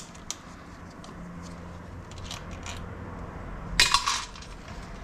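Metal hand tools and bolts clinking as the transmission filter's bolts are taken out with a ratchet: a few sharp clicks, then a louder metallic clatter about four seconds in.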